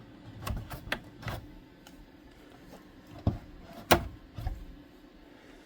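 Plastic switch on a 1973 Kenner Bionic Transport & Repair Station toy being worked back and forth. It gives several separate clicks and knocks, the loudest about four seconds in.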